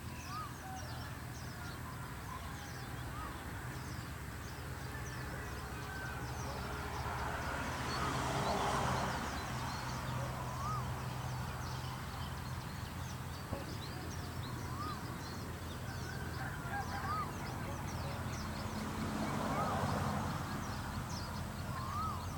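Open-field nature ambience: a bird gives a short rising-and-falling call every few seconds over a constant patter of high chirps and a low steady hum. The background noise swells twice, about eight and about twenty seconds in.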